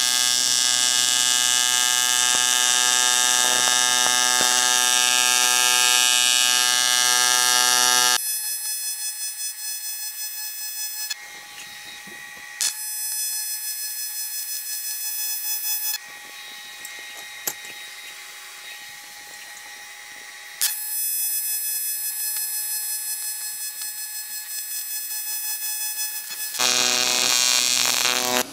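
AC TIG welding arc buzzing as 6061 aluminum bungs are fused into a cast aluminum intercooler with 5554 filler rod. The buzz is loudest for about the first eight seconds, then drops lower and shifts level several times, and grows loud again near the end.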